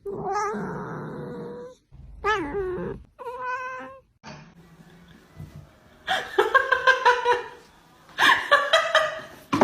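A cat yowling in a series of wavering, drawn-out calls, the first the longest, followed by quicker choppy sounds in the second half.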